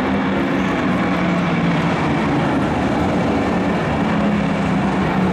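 Several dirt track race truck engines running on the track at once, their pitches drifting up and down with the throttle over a steady engine din.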